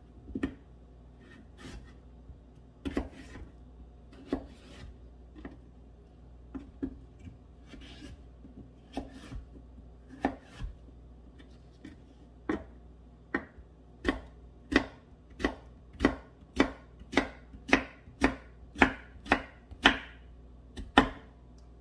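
Kitchen knife cutting a cucumber on a wooden cutting board. Scattered soft knocks come first as it is sliced into strips, then a steady run of louder chops about twice a second as it is diced.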